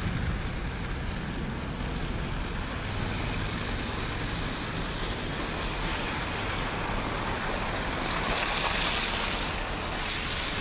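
Steady rushing noise of an approaching SEPTA Silverliner IV electric railcar train running through snow, with wind buffeting the microphone. A brighter hiss swells about eight seconds in.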